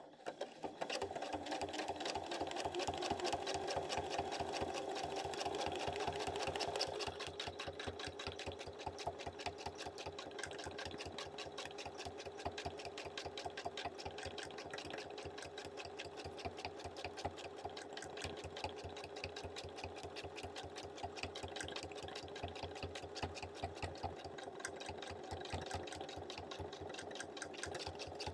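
Domestic sewing machine stitching continuously at speed during free-motion quilting, the needle striking in a rapid even rhythm. It runs a little louder for the first several seconds, then settles slightly quieter.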